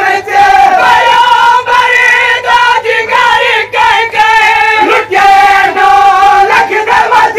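A crowd of men singing a Siraiki noha, a Shia mourning lament, in unison behind a lead reciter, the voices held on long, wavering notes. Sharp slaps of chest-beating (matam) cut through the singing several times.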